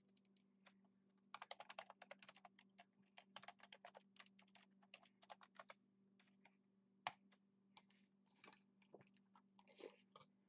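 Computer keyboard typing: a quick run of keystrokes for about four seconds. A single sharp click follows, the loudest sound. Near the end comes crunchy chewing of food, all over a faint steady low hum.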